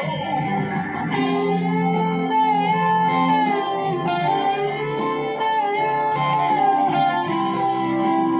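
Electric guitar played through a Deviser TG-30 practice amplifier: a lead line of sustained single notes, with pitch bends and vibrato.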